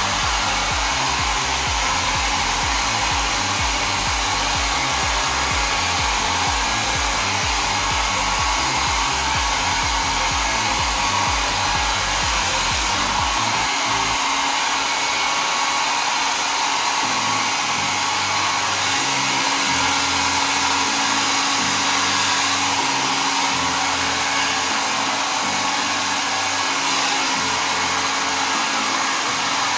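Nova NV-662 1000 W foldable mini travel hair dryer running steadily on its single hot setting, a constant rushing hiss of blown air. A fluttering low rumble from the air stream fades about halfway through.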